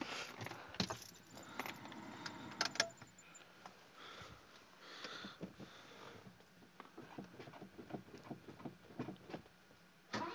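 Keys jangling and clicking on the ring hanging from the ignition of a 1982 Mercedes-Benz W123 230E as the key is worked, with scattered small clicks and rattles. Just before the end, the car's 2.3-litre four-cylinder petrol engine fires suddenly on a cold start at −21.5 °C.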